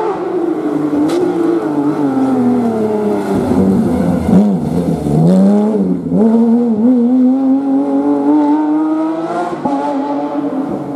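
Porsche 911 rally car's flat-six engine braking hard into a hairpin, the revs dropping with quick throttle blips on the downshifts, then accelerating hard away, the pitch climbing steadily with a gear change near the end.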